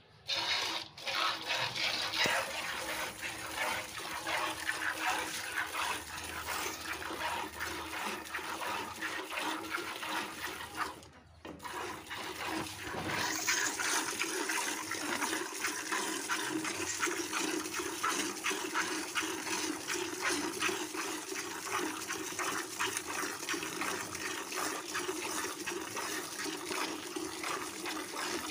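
A cow being hand-milked: jets of milk squirting from the teats into a steel pail in a fast, steady run of hissing spurts. The squirting breaks off briefly about eleven seconds in.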